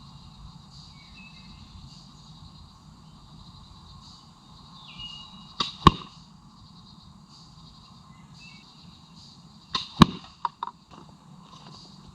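Two slingshot shots, a few seconds apart. Each is a sharp snap followed a moment later by a louder crack as the ball strikes the target. After the second shot come a few lighter ticks.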